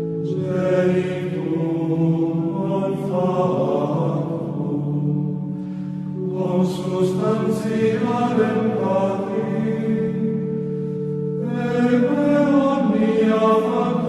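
Church hymn sung over sustained accompanying chords, in phrases with short pauses in the singing about six and eleven seconds in.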